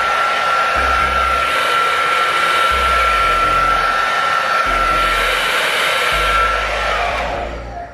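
Hand-held hair dryer blowing with a steady whine, then winding down and switching off near the end.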